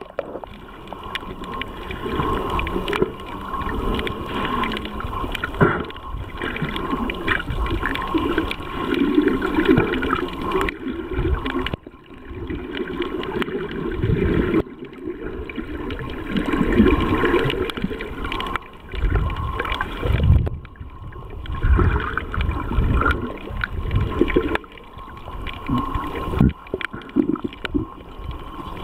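Muffled underwater sound of water movement and gurgling bubbles, coming in uneven swells every few seconds, with a faint steady whine underneath.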